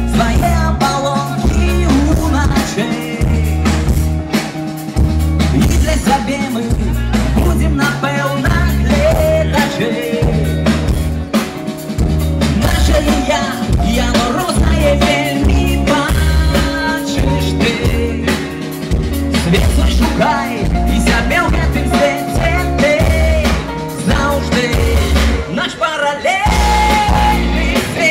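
Live rock band playing through a stage sound system: electric guitars, bass and drum kit with a singer, heard from the crowd.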